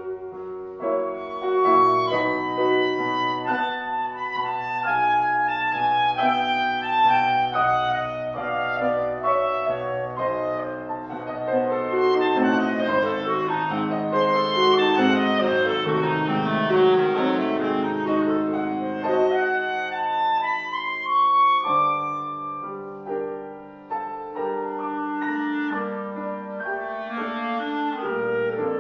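Clarinet and grand piano playing a classical duet, with a busy stretch of quick notes in the middle and a rising run a little past it.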